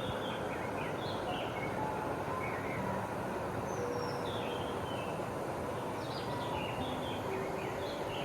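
A mountain stream in spring high water rushing steadily. Birds chirp over it in short, falling phrases several times.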